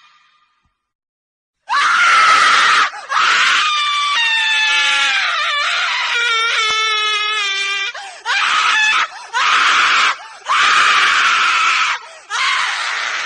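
A woman screaming: after a short silence, about six loud screams in a row, the second one long, with its pitch wavering and falling.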